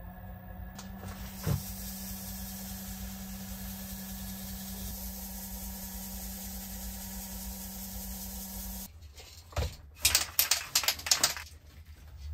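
Wood lathe motor running with a steady hum, with a single knock about a second and a half in. It cuts off about nine seconds in, and after a thump comes a quick series of loud metallic rattles: the mixing ball of an aerosol can of gloss lacquer being shaken before spraying.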